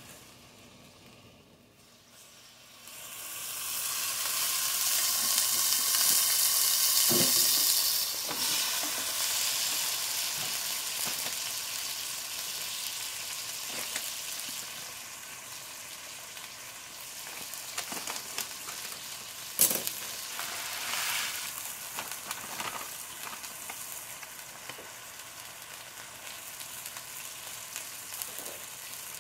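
Hot oil sizzling in an enamelled pot as shredded chicken is fried. The sizzle starts about three seconds in, is loudest soon after and slowly dies down, with a few sharp clicks of utensils or a packet along the way.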